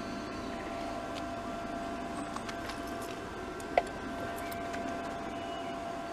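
Flux-core wire welder in use: a steady hum and hiss with scattered small crackles, and one sharp click about four seconds in.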